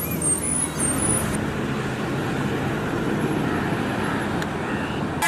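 A bus engine running as it drives along the road, with steady road and traffic noise.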